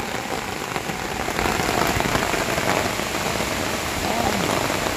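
Heavy rain falling steadily, heard from under an umbrella.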